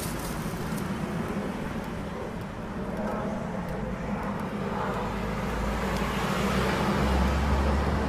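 Steady street traffic rumble and general outdoor street noise, the low rumble growing a little louder near the end.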